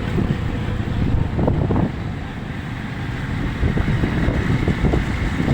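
Strong sea wind buffeting the microphone in uneven gusts, a dense low rumble.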